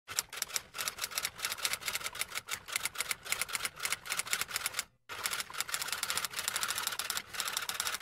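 Typewriter typing: a fast, uneven run of key strikes, with a short pause about five seconds in.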